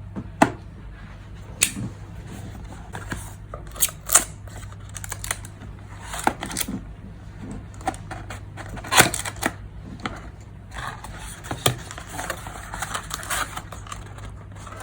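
A cardboard retail box and its packaging being opened and handled by hand: irregular clicks, taps and knocks with rustling between them, a few sharper snaps standing out, over a steady low hum.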